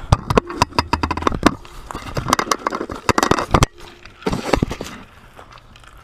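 Dry twigs and leaves crackling and snapping underfoot: a rapid run of sharp cracks for about three and a half seconds, then a shorter burst a little later.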